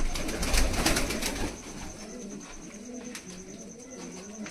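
A loud burst of wing flapping and scuffling in the first second and a half as a pigeon is grabbed from the loft floor, then pigeons cooing steadily.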